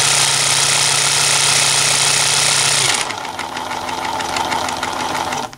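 Small 12 V tire inflator compressor, its cylinder head off, running loudly with its piston pumping, vibrating hard. About halfway through its pitch drops as it slows and gets quieter, and it cuts off right at the end.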